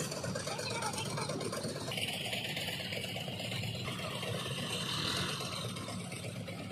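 Diesel engines running steadily: first a Dasmesh 912 combine harvester at work cutting paddy, then, after a sudden change about two seconds in, a John Deere 5050 tractor pulling a loaded grain trolley.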